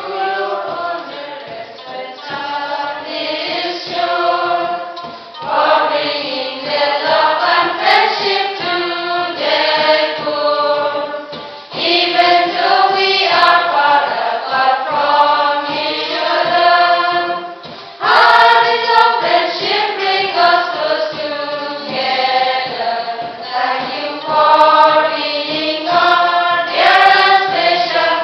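A mixed church choir of men, women and children singing a hymn together, in long phrases with a short break for breath between them.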